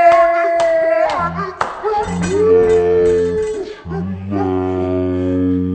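Kids shrieking and yelling in excitement, three long loud held cries one after another, with a couple of sharp clicks between the first two.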